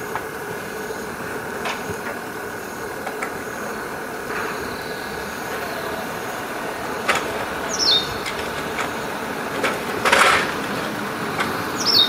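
Male Japanese pied wagtail (white wagtail) calling twice, each call a short falling chirp, about eight seconds in and again at the very end, over a steady mechanical hum. A brief rush of noise, the loudest sound, comes between the two calls.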